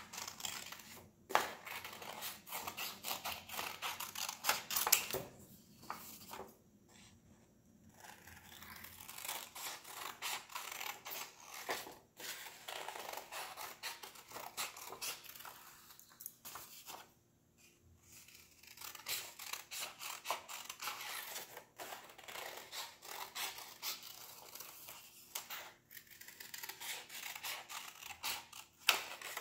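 Scissors snipping through construction paper in many quick cuts, with the paper rustling as it is turned, and a couple of short pauses between runs of cuts.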